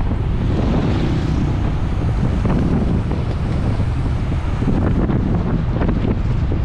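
Steady, loud wind buffeting the microphone of a bike-mounted on-board camera as the rider races at speed.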